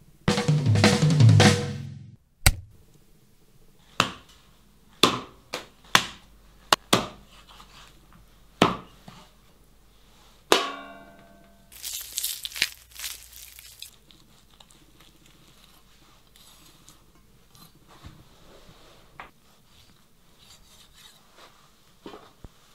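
Irregular single drum and percussion hits, each with a short decay, after a dense loud burst at the start. About ten seconds in comes a quick rattling run, then a brief hiss, and the rest is faint scattered ticks.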